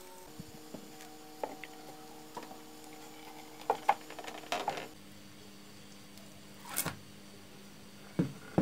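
A glass baking dish is handled and turned out onto a baking tray. There are a few sharp clinks and knocks of glass about four seconds in, a short soft sliding sound near seven seconds, and more knocks near the end as the dish is lifted off. A faint steady hum runs underneath.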